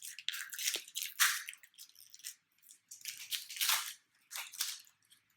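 Foil booster pack wrapper being torn open and crinkled, in irregular crackly bursts.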